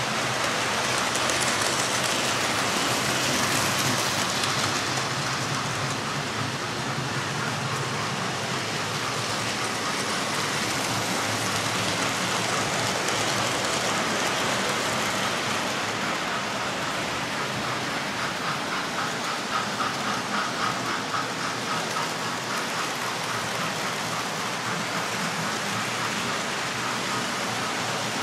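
Model railway trains running on the layout's track: a steady rushing whirr of small motors and wheels on rails, with a stretch of rapid, regular clicking about two-thirds of the way through.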